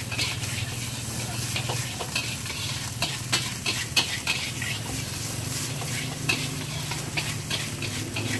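Metal spatula scraping and clicking irregularly against a wok as fried rice (nasi goreng) is tossed and stir-fried, over a steady sizzle.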